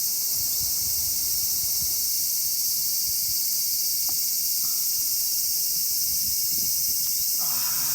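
Steady, high-pitched chorus of insects droning without a break, the loudest sound here.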